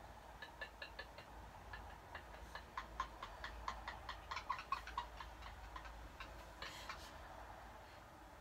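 A run of quick, light clicks or ticks, irregular and up to several a second, thickest in the middle and stopping near the end.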